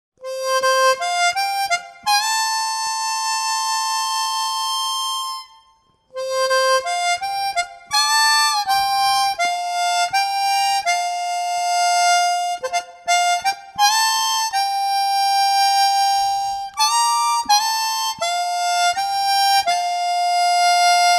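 Background music: a harmonica playing a simple melody of held and stepping notes, with a short pause about five and a half seconds in before the phrase starts again.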